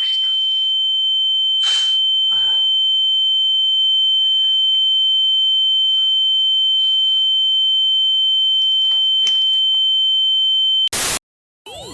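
A loud, steady, high-pitched electronic tone, like one long beep, held for about eleven seconds and cutting off suddenly. A short loud burst of noise follows, then a moment of silence.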